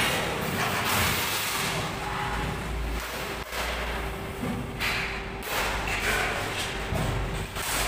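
Sheet-metal shop noise at a hydraulic press brake: a steady machine hum under irregular rushes, rattles and knocks as long steel sheets are handled.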